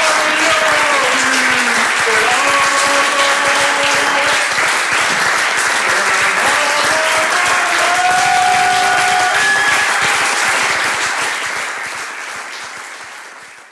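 Audience applauding, with a melody of held notes playing over the clapping; both fade out over the last few seconds.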